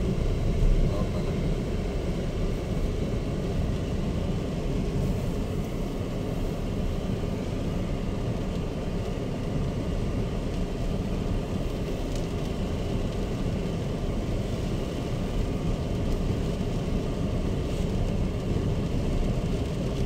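Steady low road and tyre noise with engine hum inside the cabin of a Chery Tiggo 7 Pro driving along a wet, unpaved forest road.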